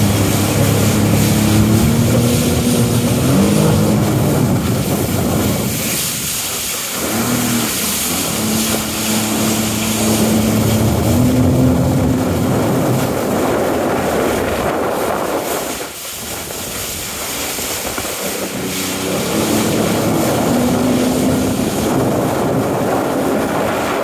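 Sea-Doo Spark jet ski's three-cylinder engine revving up and down as it carves turns, its pitch rising and falling. It drops away briefly about six and sixteen seconds in. A steady hiss of spray and wind runs under it.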